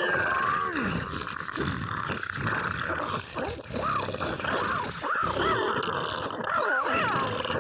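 A voice actor performing creature vocalisations, several vocal tracks layered at once, with pitches gliding up and down and no break.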